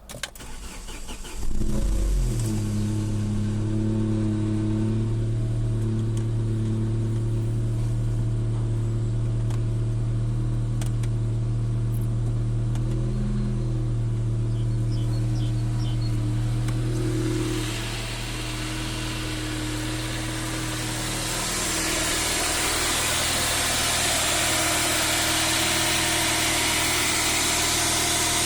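1998 Saab 9-3 2.0-litre four-cylinder engine cranking briefly on the starter, then catching and idling steadily. It carries the rattle the owner is trying to trace. About two-thirds of the way in the sound turns brighter and hissier, and a little louder.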